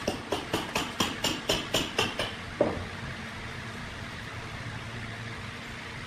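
A quick run of about ten sharp knocks, roughly four a second, then one heavier knock, over a steady background hum.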